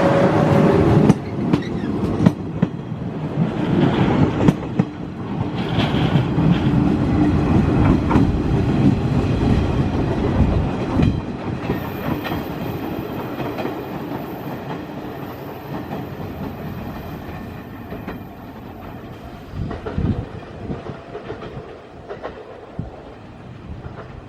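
Electric commuter train running on the rails, wheels clacking over rail joints with sharp clicks, and a low motor hum at first; the sound slowly fades as the train draws away.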